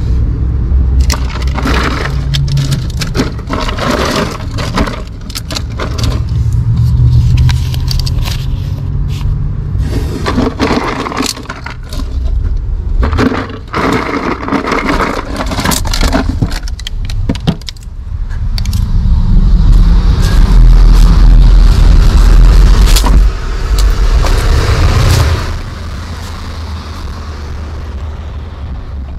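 Hands rummaging in a plastic Igloo cooler, with a run of clatters and scrapes as bottled drinks are dug out. After about 18 seconds a loud low rumble takes over for several seconds, then it drops to a quieter steady background.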